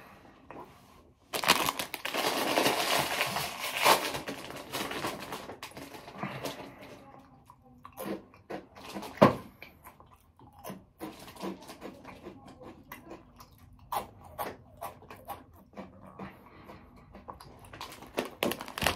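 Close-up chewing and crunching of crisp snack chips (Cheetos and Lay's potato chips), with a loud stretch of crackling for a few seconds near the start and scattered crunches after.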